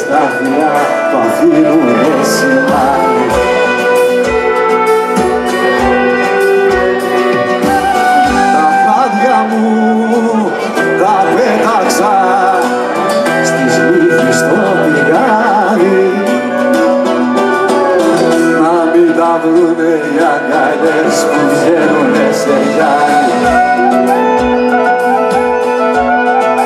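Live Greek folk band playing, with a laouto (Cretan lute) strummed and melody lines weaving over it, and a steady low drum beat underneath.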